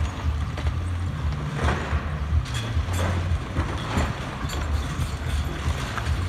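Cat hydraulic excavator demolishing a building: a low engine rumble with irregular crashes and scrapes of breaking masonry and metal, several in a few seconds.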